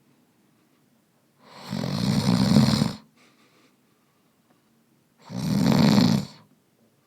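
A sleeping man snoring loudly: two snores, the first about a second and a half long and the second about a second, with near-quiet pauses between them.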